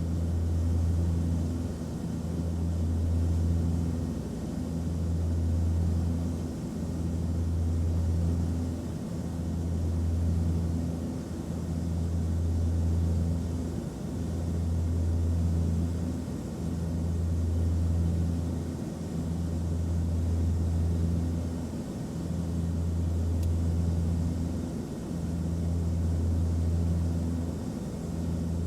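Airplane cabin noise: a steady low drone with a deep hum that swells and fades about every two seconds, over a faint hiss.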